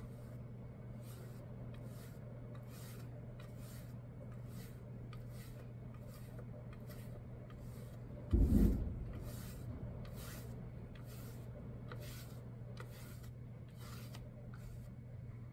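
Flat bristle paintbrush stroking acrylic paint back and forth across a plaque, the bristles rasping about twice a second. A single dull thump comes a little past halfway.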